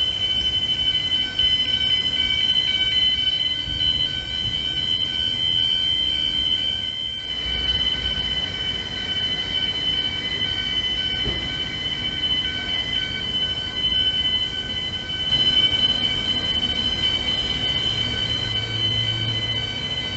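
Building fire alarm sounding one continuous high-pitched tone. A low rumble joins it near the end.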